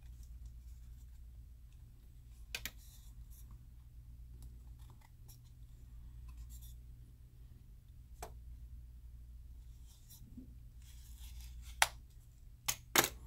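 X-Acto knife blade scraping and prying at the seam of a Porsche Design external hard drive's case while trying to release its snap locks: faint scratching with a few sharp clicks, the loudest two close together near the end, over a steady low hum.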